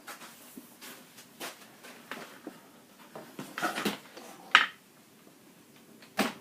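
A few scattered knocks and clicks from handling a Dyson Ball vacuum cleaner; its motor is not running.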